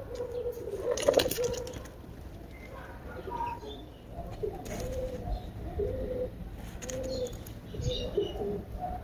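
Pigeons cooing, a short low call repeated every second or so. There is a brief burst of clicks about a second in, and faint higher bird chirps near the end.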